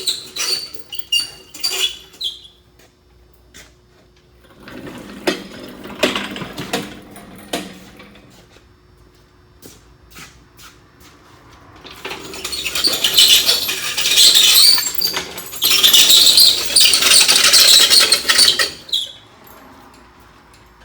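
Shop work noises from handling tools and metal parts: scattered clicks and knocks, then two long stretches of loud rattling, rasping noise in the second half.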